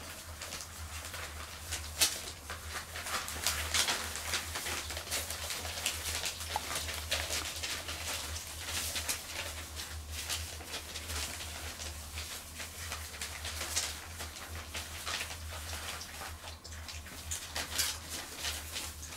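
Cotton de Tulear puppies scampering and playing: many small, irregular clicks and scratches of claws and paws on tiles, newspaper and blanket, over a steady low hum.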